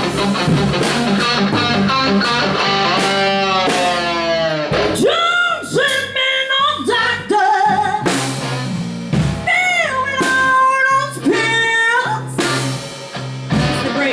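A small live band playing together: guitar over bass and drums. About five seconds in, a lead line of sliding, bending notes comes in over the band.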